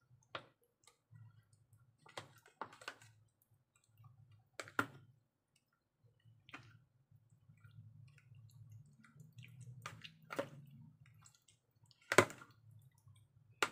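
Metal spoon clicking and scraping against a plastic food tub while turning raw chicken wings in a wet marinade, with soft squelches of the coated meat. The clicks come irregularly, the loudest about twelve seconds in, over a faint low hum.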